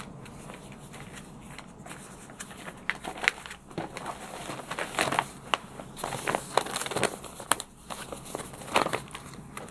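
Paper rustling and crinkling as documents are handled and leafed through, in irregular crisp rustles that start about two seconds in and grow busier toward the end.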